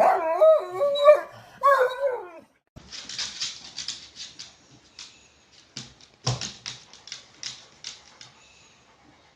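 A dog whining in a long wavering, rising and falling pitch for about two seconds, then a run of short scratchy, rustling noises with a single thump partway through.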